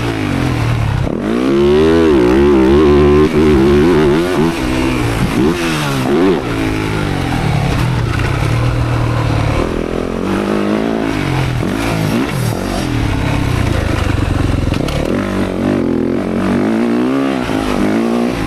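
Motocross dirt bike engine being ridden hard, revving up and dropping back again and again as the throttle is opened and closed, so its pitch rises and falls over and over.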